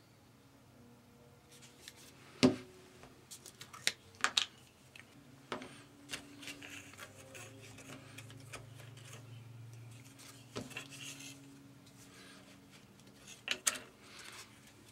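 Hands working with craft tools on a cutting mat: a sharp knock about two and a half seconds in, then scattered clicks and taps with soft rubbing and scraping, as a plastic jar of acrylic gel medium and a metal palette knife are handled.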